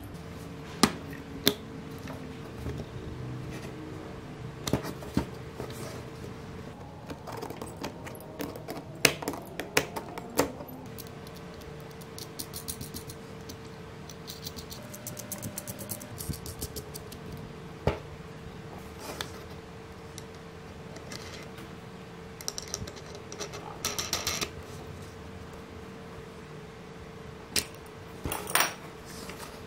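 Irregular clicks, taps and a few sharper knocks of 3D-printed plastic parts and small steel screws and pins being handled and fitted together by hand, with a faint steady hum underneath.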